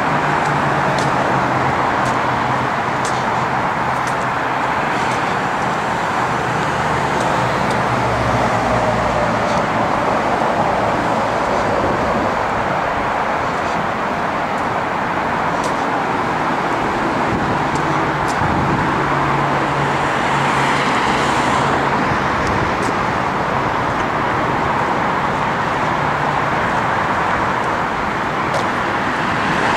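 Steady road traffic noise, with the low hum of passing vehicles coming and going.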